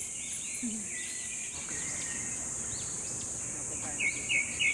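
Outdoor ambience: a steady, high-pitched insect drone with birds chirping throughout, and a quick run of bright bird chirps near the end.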